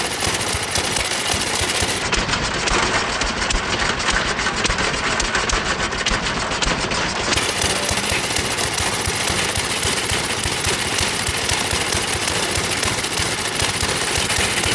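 Small single-cylinder mini bike engine running steadily with its exhaust pipe not yet bolted on, giving a loud, rapid crackle of firing pulses.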